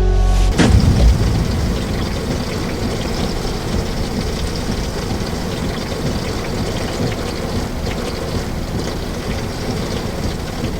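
A sudden loud crack of thunder about half a second in, then heavy, steady rain.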